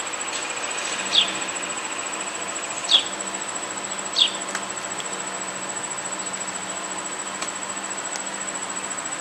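An insect trills steadily on one high pitch, with short falling chirps heard three times in the first half.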